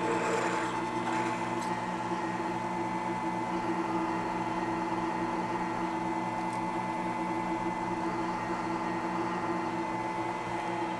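Milling machine spindle running steadily with a drill bit in the chuck, giving an even motor hum.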